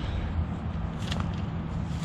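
Footsteps over a grassy, muddy riverbank path, heard through a steady low rumble on a chest-mounted camera's microphone, with a light click about a second in.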